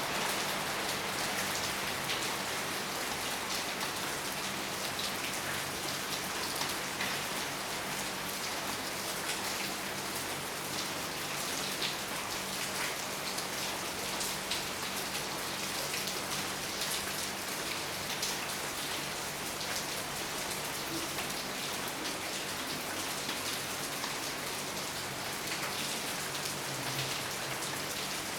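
Steady rain falling, with many small drops ticking on surfaces.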